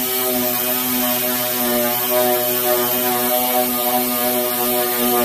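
Pneumatic dual-action (DA) orbital sander running steadily while sanding body filler on a steel door panel: an even motor whine over the hiss of the paper on the filler.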